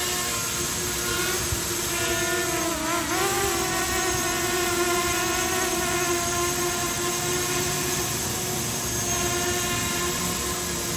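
SJRC F11 4K Pro quadcopter's brushless motors and propellers whining at a steady pitch as it comes down to land, the pitch dipping and wavering briefly about three seconds in.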